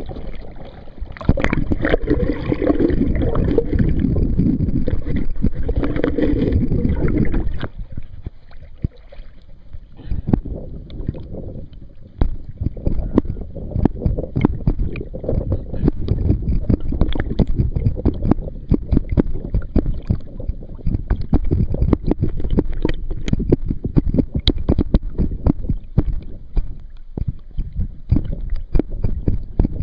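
River water rushing and gurgling over the camera's microphone as it is held in and at the surface. A steady rush for the first several seconds, then irregular splashing, bubbling and crackling as the microphone moves through the waterline.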